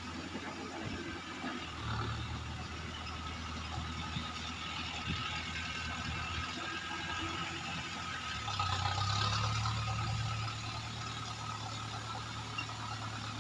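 Mahindra Arjun 4WD tractor's diesel engine running steadily under load, driving a rotavator through flooded paddy mud. It grows louder for a couple of seconds past the middle, then settles back.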